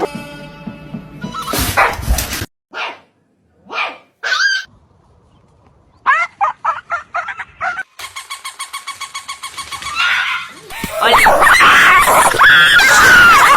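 Dog barking and yipping in short calls, with a quick run of sharp barks partway through, mixed with music.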